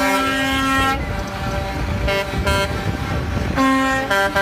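Cement mixer trucks sounding their air horns: a long horn blast for about the first second, two short toots a little after two seconds in, and another long blast near the end, with truck engine rumble between the blasts.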